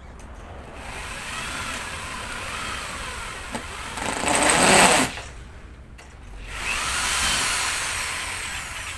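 Electric hand drill boring holes into a wooden handsaw handle: the motor whine rises and falls in pitch and grows louder as the bit cuts. It stops suddenly about five seconds in, then starts again a second later for a second hole and slowly winds down.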